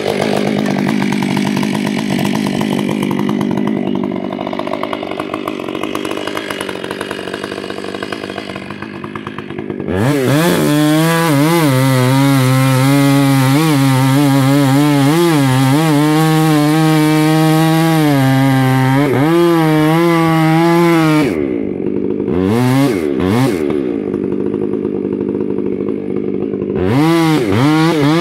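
Stihl 500i fuel-injected two-stroke chainsaw, on a 34-inch bar with full-comp chain and a 7-pin sprocket, cutting into a large tree trunk. The engine note is rough and laboured at first. About ten seconds in it turns into a high, steady whine that wavers as the chain loads and frees. Around two-thirds of the way through the note dips, then climbs again near the end.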